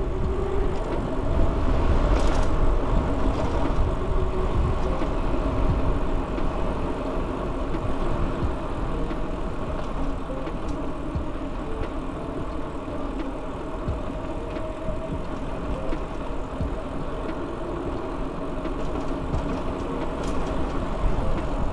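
Strong wind rumbling on the microphone while riding a bicycle, a steady low noise with a faint hum underneath.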